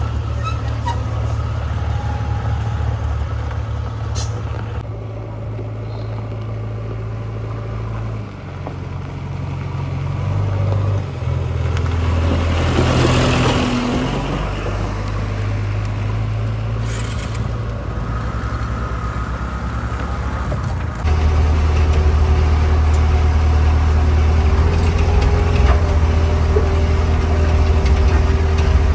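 JCB 3DX backhoe loader's diesel engine running as the machine drives along, a steady low drone. A brief hissing rush comes about halfway through, and the engine is louder over the last third.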